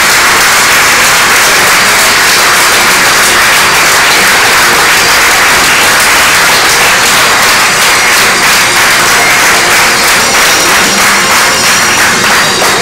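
Audience applauding, a dense, steady clapping that thins a little near the end.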